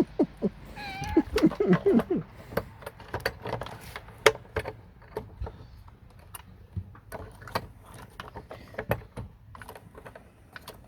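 A cat meowing in short cries during the first two seconds. After that come scattered sharp clicks and light rattles of plastic and metal parts being handled.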